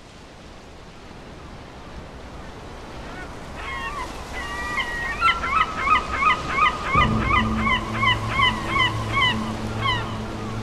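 Surf and waves fading in and swelling. From about four seconds in, a bird calls over and over in quick succession, two to three calls a second. About seven seconds in, a low steady musical drone comes in under them.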